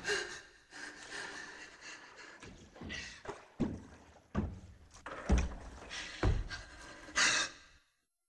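A run of dull thuds, about five of them roughly a second apart, over a faint busy background, cutting to silence near the end.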